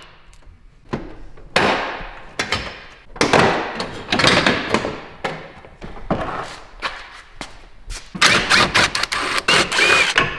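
Metal clunks and knocks of hand tools and bumper parts being worked loose, then a DeWalt cordless impact driver running in a rattling burst of about two seconds near the end, driving out headlight mounting bolts.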